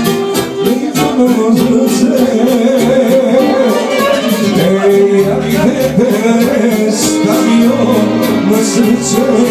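Live Serbian folk wedding band playing: accordion and violin with a man singing into a microphone, over a steady beat.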